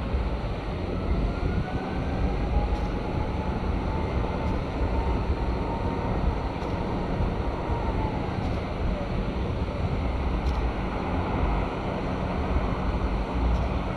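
Distant jet aircraft engines whining faintly, the pitch rising, holding and then falling away about two-thirds through, under a steady heavy rumble of wind on the microphone.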